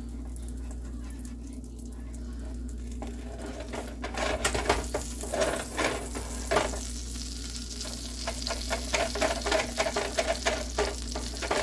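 Pancakes sizzling in a nonstick frying pan. From about four seconds in, a rapid run of scrapes and knocks as a silicone spatula works under the pancakes and the pan is shifted on the coil burner.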